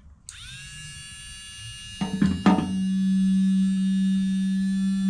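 Background music: a sustained chord comes in just after the start, two drum hits land about two seconds in, and a steady low note then holds.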